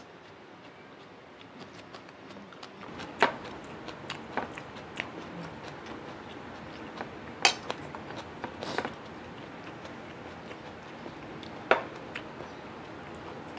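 Crockery clinking and knocking on a table: scattered light clicks with a few louder sharp clinks about three, seven and a half and twelve seconds in, as rice is eaten by hand off a ceramic plate and a small bowl is tipped over it.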